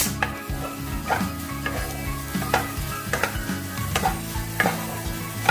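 A cooking utensil stirring and scraping boiled potato into spiced masala in a pan, knocking against the pan in irregular clacks about twice a second, over a light sizzle.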